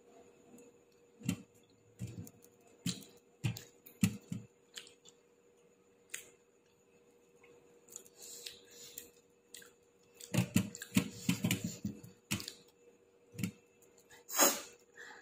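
Eating noises: scattered clicks, taps and soft knocks, as of hand and food against a plate. There is a busier run of clicking about ten seconds in and a brief loud rushing noise near the end.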